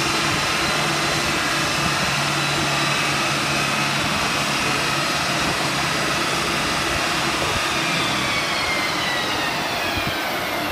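Mk2 Ford Focus ST's turbocharged five-cylinder engine and its tyres on the rolling-road dyno rollers, running loud and steady at speed. The pitch falls away over the last couple of seconds as the run winds down.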